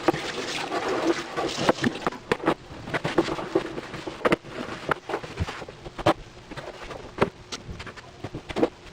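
Dishes and utensils clattering and clinking as they are handled, a rapid, irregular series of sharp knocks.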